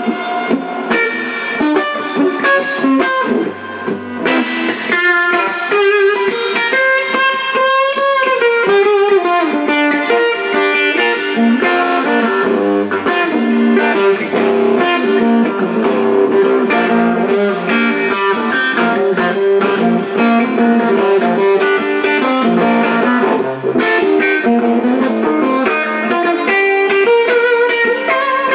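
Gibson Les Paul Special electric guitar, played through an amp, improvising a blues lead: quick single-note runs with string bends and vibrato, the most pronounced bends near a third of the way in.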